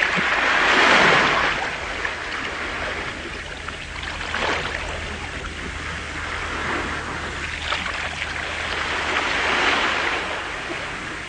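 Sea waves surging and washing in repeated swells of rushing water, the loudest about a second in.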